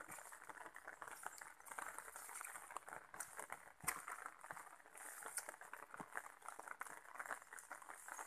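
Faint footsteps and rustling of someone walking along a wet dirt footpath through grass: an irregular soft crackling, with a sharper click about four seconds in.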